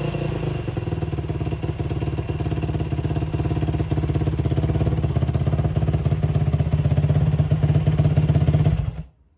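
Motorcycle engine idling with an even firing beat, then shut off about nine seconds in.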